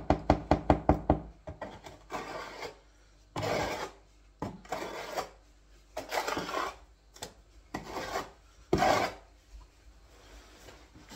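Square bucket trowel working thick tile adhesive in a mixing bucket. It starts with a quick run of taps, then about six separate rasping scrapes against the bucket.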